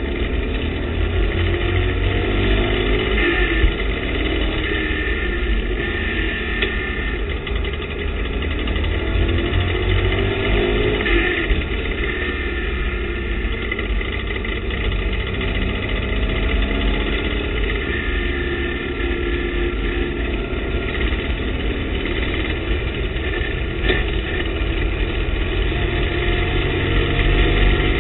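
TVR Tuscan race car's engine at racing speed, heard from inside the cockpit. Its note rises repeatedly and then drops back, over a constant low rumble.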